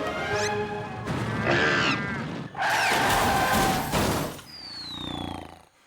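Cartoon soundtrack music mixed with sound effects. Near the end a high whistle glides downward, then the sound cuts off suddenly.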